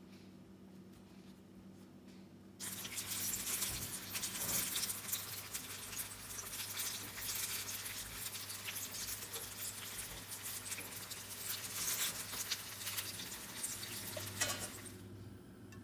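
Banana spring rolls (turon) deep-frying in hot oil in a pan: dense crackling and sizzling of the oil. It starts suddenly about two and a half seconds in and fades out near the end.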